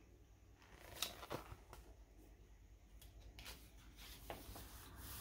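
Faint handling noise: soft rustles and a few light clicks, the loudest about a second in.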